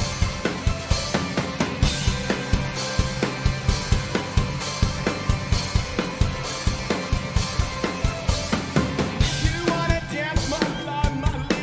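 Live rock band playing: a steady drum-kit beat with electric guitar, and a singing voice coming in near the end.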